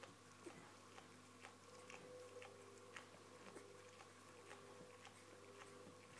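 Near silence: faint room tone with a low steady hum and scattered soft clicks.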